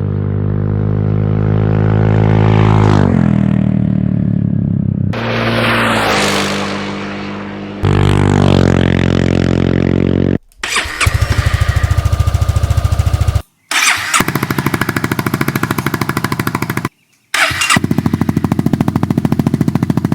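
The 2015 Honda Forza 300's single-cylinder engine through a Devil Evolution aftermarket exhaust, in several short clips. The revs rise and fall in the first half, with one clip sweeping past. From about halfway the engine idles with a fast, even exhaust pulse, broken twice by brief cuts.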